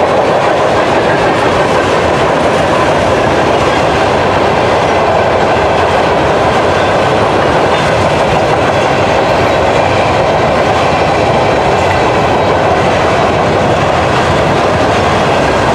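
Covered hopper cars of a freight grain train rolling past, steel wheels running on the rails in a loud, steady rumble.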